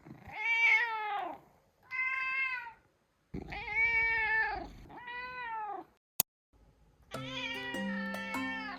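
A black cat meows four times, drawn-out attention-seeking meows, each rising and then falling in pitch. A sharp click follows, and light mallet-percussion music starts near the end.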